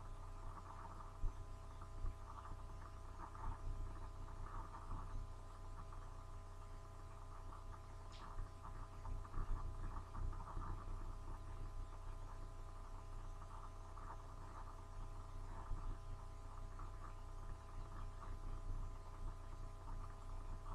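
Steady electrical hum: several faint constant tones over a low fluttering rumble, with one faint click about eight seconds in.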